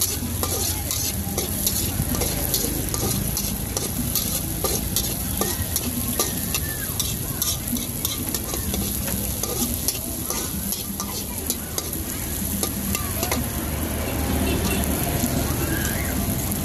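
A metal ladle scraping and clacking against a large aluminium wok as diced carrots and green beans are stir-fried, with oil sizzling underneath throughout.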